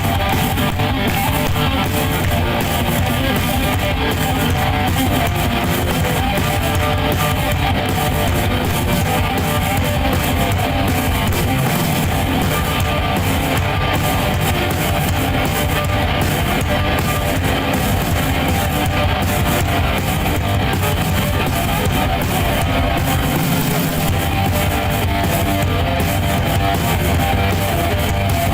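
A rock band playing live and loud: a strummed electric guitar to the fore, with drums.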